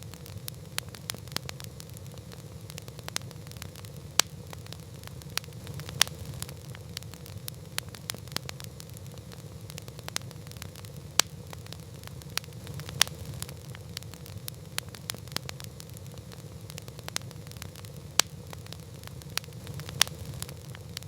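Campfire crackling: sharp irregular pops and snaps of burning wood, a few of them loud, over a steady low rumble of the flames.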